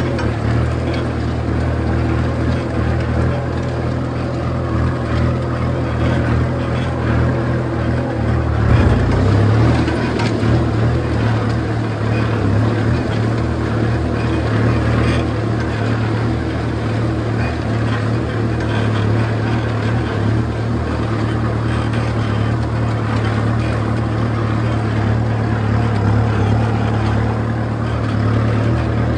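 Kubota M6240 tractor's four-cylinder diesel engine running steadily under load while pulling a disc plough through dry soil, with a brief louder bump about nine seconds in.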